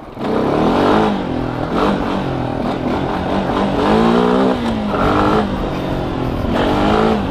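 Honda FourTrax 420 ATV's single-cylinder four-stroke engine revving up and down with the throttle while riding over rough grass, its pitch rising and falling several times.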